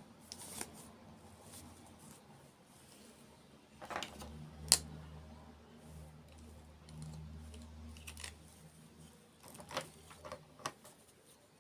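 Crisp clicks and crunches of ASMR-style dessert eating, a handful of separate sharp snaps, the loudest about halfway through. A low hum runs underneath through the middle.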